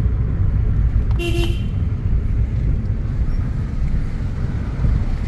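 Steady low rumble of a car driving on a road, with a single short car horn toot about a second in.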